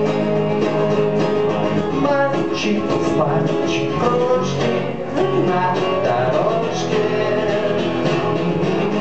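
Acoustic guitar strummed live, with a hand shaker swishing in rhythm: an instrumental break between verses of a song.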